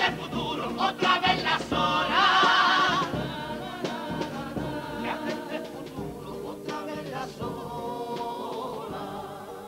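Male choir of a Cádiz carnival comparsa singing in harmony, accompanied by acoustic guitars. A loud held note with vibrato comes about two to three seconds in, and the singing then grows gradually quieter.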